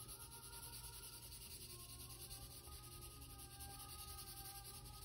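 Crayola colored pencil shading on paper, a soft steady scratching of back-and-forth strokes, with faint soft music underneath.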